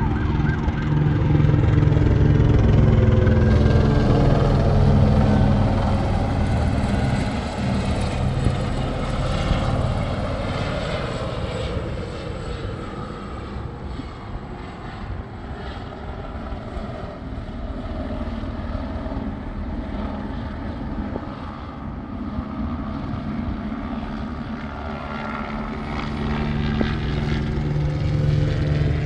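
LAPD police helicopter, a Eurocopter AS350, circling overhead with the steady beat of its rotor and engine. Loud in the first few seconds, it fades through the middle as it swings away, then grows louder again near the end as it comes back around, its pitch shifting as it passes.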